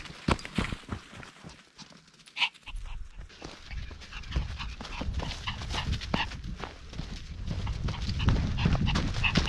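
Maltese dogs running over dry leaf litter, their paws crunching and rustling the leaves in a quick patter, with dog panting. It goes briefly quieter about two seconds in, then the patter builds as the dogs come close.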